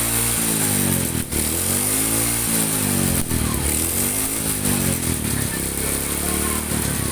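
Motorcycle engine revved up and let fall back about every two seconds, three or four times in a row.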